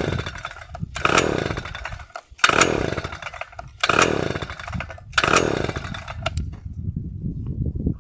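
Predator two-stroke engine on a post-hole auger being pull-started: five hard pulls of the recoil starter, about one every 1.3 seconds, each turning the engine over in a short burst that dies away without the engine catching.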